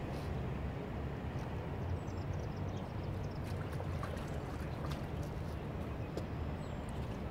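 A steady low engine hum under a noisy wash, with scattered light clicks and taps.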